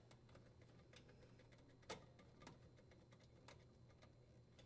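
Near silence with a few faint, scattered clicks, the clearest about two seconds in: small metal parts being handled while the dishwasher's electrical connection is wired up.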